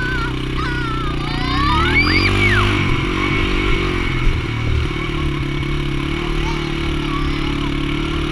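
Small engine of the vehicle towing a chair ride, running steadily, its revs rising briefly about two seconds in. Children's high-pitched squeals rise and fall over it in the first few seconds.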